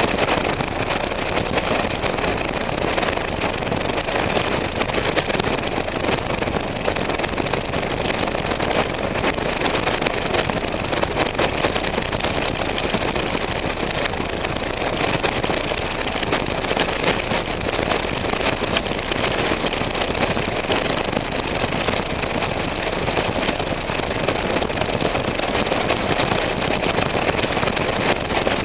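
Strong wind of over 30 miles per hour blowing across the microphone: a steady, unbroken rush of noise.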